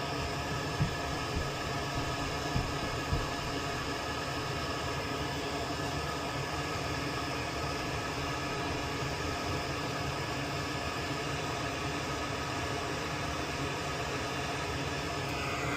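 Steady whirring hum of a fan or small motor, with a few light taps in the first few seconds.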